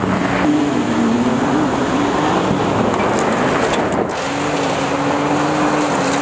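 Ram 1500 RHO's 3.0-litre Hurricane twin-turbo inline-six running hard on a dirt track, its pitch wavering up and down, over a loud hiss of tyres spraying dirt. About four seconds in the sound cuts to a steadier, held engine note.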